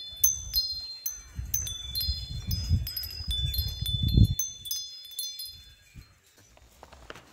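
Wind chimes tinkling, many clear high notes overlapping, over a low rumble of wind on the microphone that swells to its loudest about four seconds in and then stops; the chimes die away about six seconds in.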